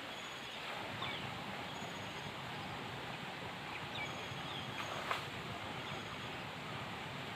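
Flowing river water rushing steadily, with a few short chirps and a brief click about five seconds in.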